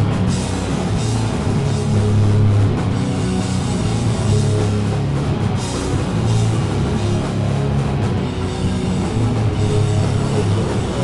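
A loud live heavy rock band playing: electric guitars and bass over a drum kit, with cymbals washing over the top.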